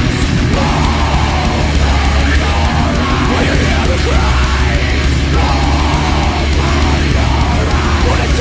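Loud heavy metal music with a strong, steady bass.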